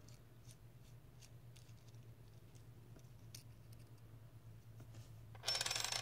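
Faint small metal clicks and handling as the stainless-steel chimney cap of a rebuildable tank atomizer is unscrewed by hand, then a louder burst of noise lasting under a second near the end.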